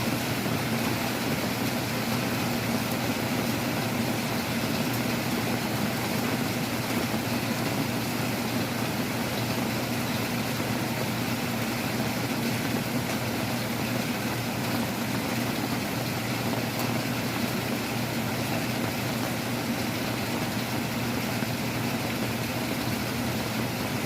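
Heavy rain falling steadily with wind, heard as a continuous rushing noise.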